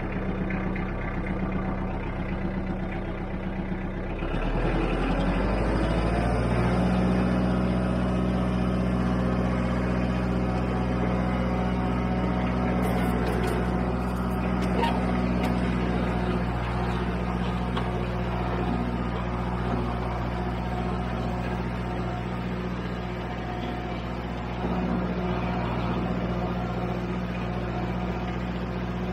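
Kubota L4600 compact tractor's four-cylinder diesel engine running steadily while pulling a land leveler slowly over asphalt millings. About four seconds in, the engine note shifts and gets louder, then holds steady.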